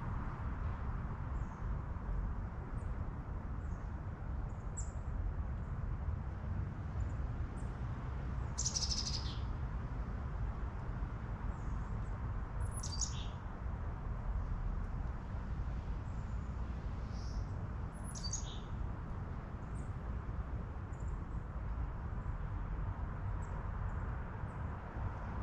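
Steady wind with a low rumble throughout, and birds chirping now and then above it: short high calls, three of them clearer than the rest, spread through the recording.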